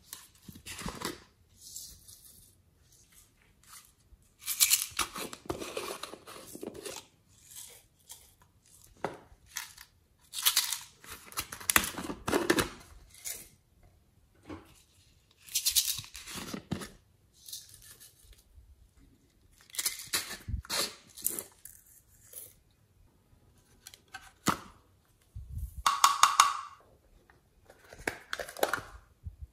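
Plastic toy containers of clay being handled and pried open by hand: irregular bursts of scraping and crinkling with a few sharp clicks, separated by short pauses.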